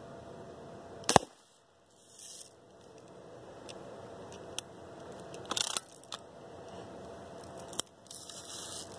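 Daisy Red Ryder spring-piston BB gun firing: one sharp shot about a second in, the loudest sound. A cluster of clicks follows in the middle, then another sharp shot near the end, with two short bursts of hiss.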